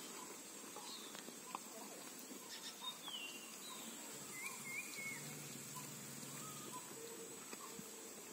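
Faint rural outdoor ambience with a few short bird chirps and whistles near the middle, and scattered faint clicks.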